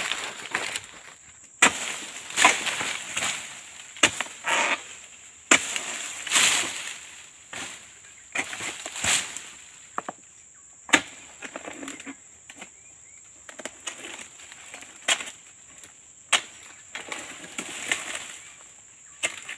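Footsteps rustling and crunching through dry fallen oil palm fronds, with several sharp snaps along the way. A steady high-pitched whine runs underneath.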